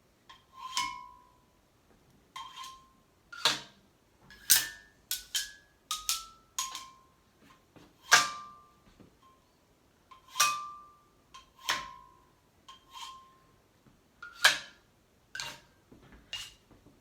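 Xylophone bars struck with mallets: a slow, uneven run of about twenty single notes, some of them quick doubles. Each note is a sharp click with a short ring that dies away fast.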